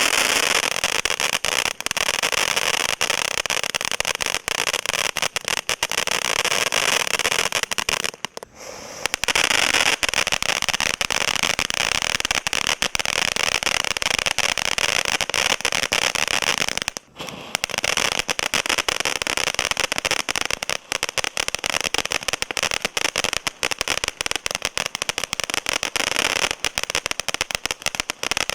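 Ground firework fountains hissing and crackling continuously with dense rapid crackle. The sound drops out briefly twice, about 8 and 17 seconds in.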